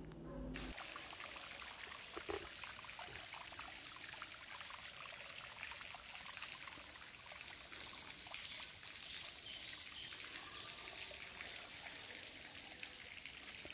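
Small pipe-fed trickle of water falling over rocks into a pond: a steady, soft trickling and splashing.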